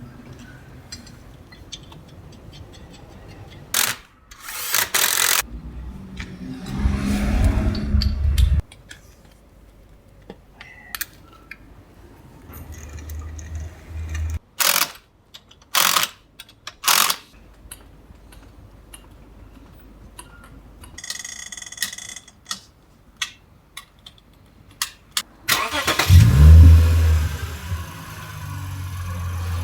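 Car repair work with no talking: scattered sharp metallic clicks and knocks from tools on the car's front suspension. There are bursts of a low engine-like running sound, and the loudest of them starts about 26 seconds in and keeps going to the end.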